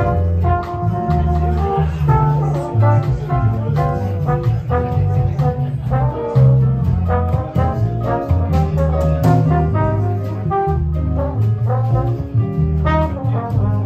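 Live jazz combo playing a bossa nova: a trumpet carries the melody over electric bass, drums and guitar.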